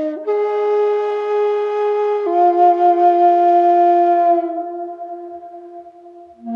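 Background music: a slow flute melody of long held notes. The first note steps up just after the start and then down about two seconds in. That lower note fades away, and a new phrase begins near the end.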